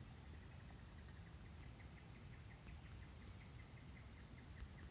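Near silence: room tone with a faint, regular chirping tick a few times a second and a steady faint high whine.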